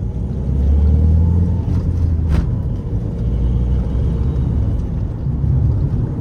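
Mahindra XUV500's mHawk four-cylinder turbo-diesel engine running on the move with a low drone that swells about a second in, then eases. A short click comes a little over two seconds in.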